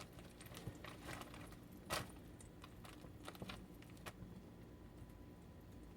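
Faint handling sounds from assembling a ham sandwich: light clicks and rustles, with one sharper tap about two seconds in.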